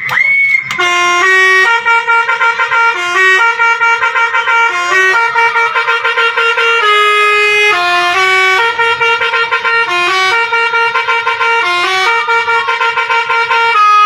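Dump truck's multi-tone musical horn playing a tune: loud, held notes that step up and down in pitch one after another, the last note held for about a second before it stops.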